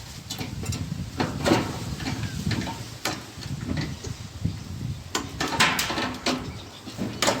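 Irregular clicks, knocks and rattles of metal and plastic parts being handled as a microwave is taken apart by hand.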